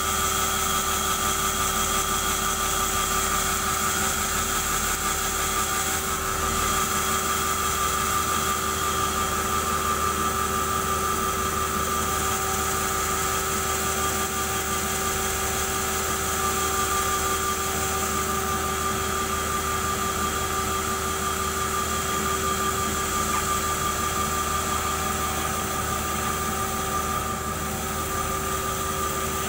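Band sawmill running without cutting: a steady, unchanging machine hum with a high whine over it.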